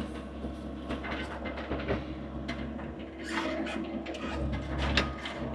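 Skid steer's engine running steadily at a low pitch, with frequent clanks and knocks from the machine over it.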